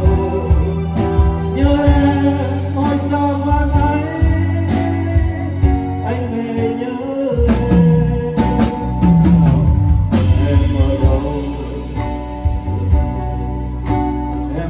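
Live band: a man singing a slow song while strumming an acoustic guitar, backed by a Tama drum kit and electronic keyboard.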